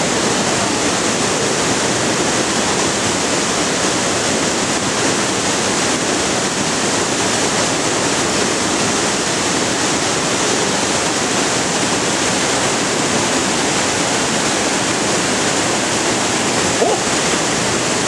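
Waterfall pouring down a rock gorge: a steady, loud rush of falling water.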